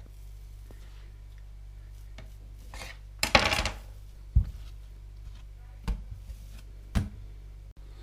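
Risen bread dough being handled in a large pot and on the worktop: a brief noisy scuffle about three seconds in, then a sharp thump and two lighter knocks, over a low steady hum.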